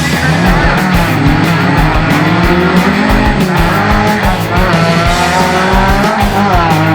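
Off-road 4x4 engines revving up and down, mixed with loud rock music with a steady beat.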